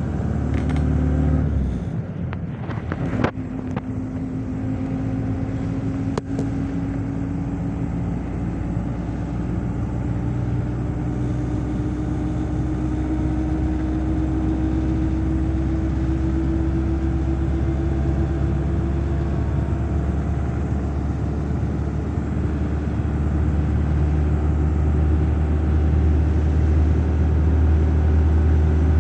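Engine and road noise heard from inside a moving vehicle: a steady low rumble with a hum that rises slowly in pitch over the first twenty seconds. Two sharp clicks come a few seconds in.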